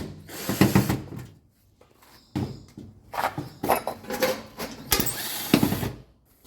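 Hands-on repair noise at the back of a washing machine: irregular knocks, scrapes and rattles of tools and parts being handled, in several stretches with short pauses between them.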